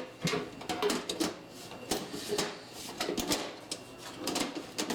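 Irregular sharp clicks and knocks of hard computer-case parts being handled and fitted together as the case is covered and locked shut.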